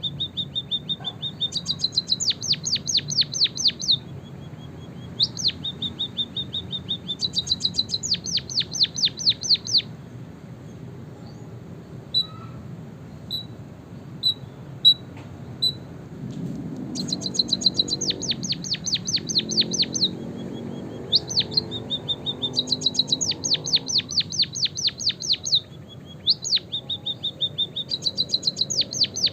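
A white-headed munia singing a canary-like song: a held high whistle followed by a fast run of sweeping notes, the phrase repeated every few seconds. Midway there is a short spell of a few single chirps spaced apart.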